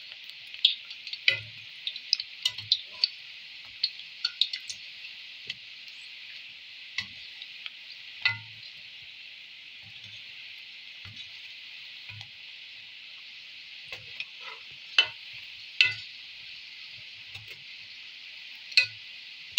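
Balushahi deep-frying in hot ghee: a steady sizzle, broken by sharp clicks and soft knocks from a wire skimmer stirring them gently in the aluminium karahi.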